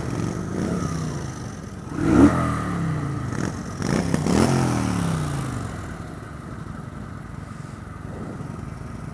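Suzuki GW250 parallel-twin motorcycle engine revving up sharply and falling back twice, about two and four seconds in, then running more steadily.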